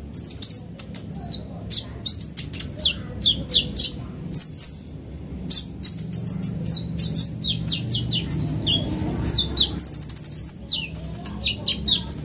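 Van Hasselt's sunbird (kolibri ninja) singing a fast run of high, thin chirps, many of them falling in pitch, with a rapid high trill about ten seconds in.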